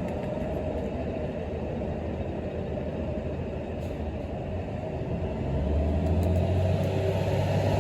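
Steady low rumble of a motor vehicle or traffic, growing louder about five and a half seconds in.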